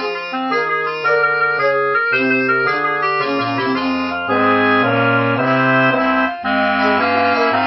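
Instrumental background music: a tune in held chords over a moving bass line, with a brief break about six seconds in.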